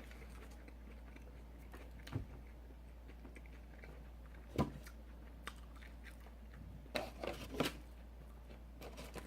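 A person eating close to the microphone: quiet chewing broken by a few short, sharp mouth sounds, one about two seconds in, one near the middle, and several close together a couple of seconds later.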